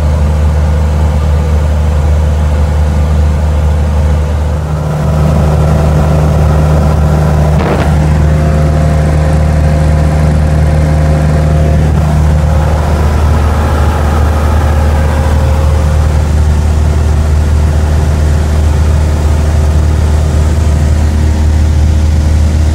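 Cessna 175's piston engine and propeller droning steadily, as heard in the cabin. The engine gets a little louder about five seconds in, as with a rise in power.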